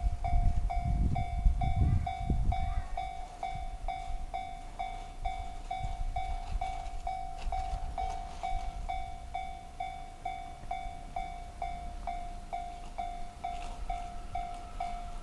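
Japanese level-crossing warning bell ringing steadily at about two dings a second. Over the first two or three seconds a JR Chuo Line rapid train's wheels rumble and clack over the rail joints, then fade as the train passes.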